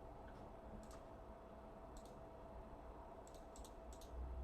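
Near silence with a few faint handling clicks as the camera is adjusted by hand. Three clicks come in quick succession near the end, over a faint steady hum.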